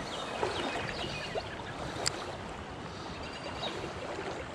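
Steady rush of a shallow creek running over gravel, with a sharp click about two seconds in.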